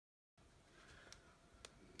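Near silence: dead silence for the first third of a second, then faint room tone with a couple of light clicks.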